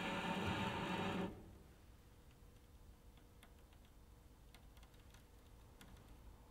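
A bowed cello note that cuts off suddenly a little over a second in, followed by near silence with a few faint clicks.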